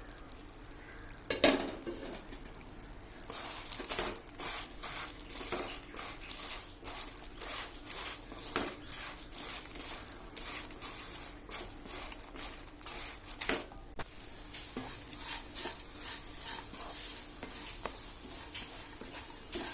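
A spatula stirs and scrapes fried sweet potato sticks in sugar syrup cooking down in a kadai, with frequent clinks against the pan over a sizzling hiss. There is one louder knock about a second and a half in, and the hiss turns steadier about two-thirds of the way through.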